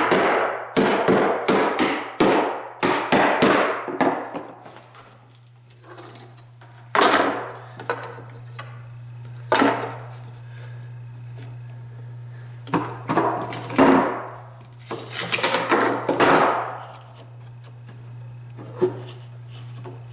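Claw hammer driving the nails of wooden carpet tack strip into old plank floorboards. A quick run of blows comes first, then single blows and short runs with pauses between them. A steady low hum runs underneath.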